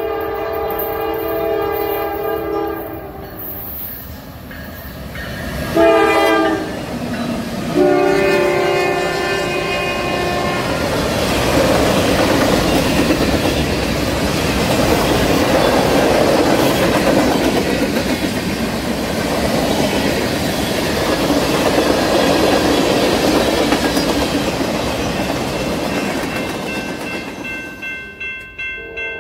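Norfolk Southern freight train's diesel locomotive horn sounding a several-note chord in three blasts: long, short, then long. The train then passes close by with a steady rumble and wheel clatter from its boxcars. Near the end another horn chord starts.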